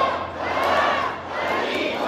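Crowd shouting a rhythmic chant, many voices rising together about once a second.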